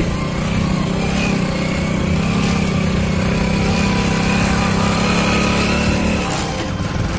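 Motorcycle engine running steadily as the bike climbs a rough, rocky hill track; the engine note drops away about six seconds in.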